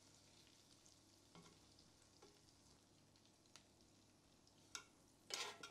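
Faint sizzle of a beef steak frying in a butter sauce in a cast iron pan, with scattered small crackles; the meat is no longer browning, only softening. A few light clicks, then a louder scrape of a metal spoon against the pan near the end.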